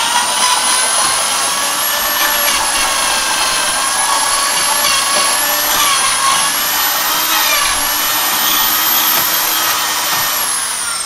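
Electric drill running steadily with a high whine as its bit bores into the end of a wooden block, widening a hole. Near the end the motor winds down, its pitch falling.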